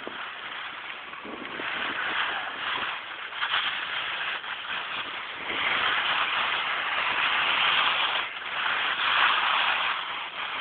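Rushing noise of descending a ski slope at speed: wind on the microphone mixed with snowboard edges scraping over packed snow. It swells louder about halfway through, dips briefly, then swells again.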